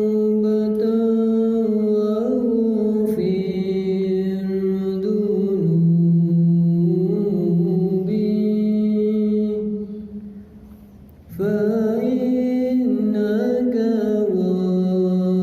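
A solo voice chanting in long held notes that move slowly up and down, with no instruments; it breaks off briefly about ten seconds in and resumes just after eleven seconds.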